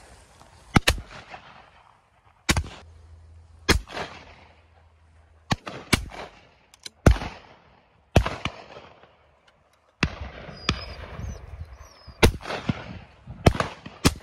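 Shotguns firing again and again at driven pheasants flying over, more than a dozen shots, some in quick pairs, each trailing off in an echo.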